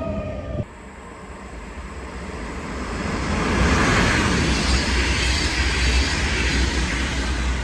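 A train passing at speed: its rolling noise swells to a peak about four to six seconds in, then eases off, over a steady low rumble. Under a second in, a falling whine from another pass cuts off abruptly.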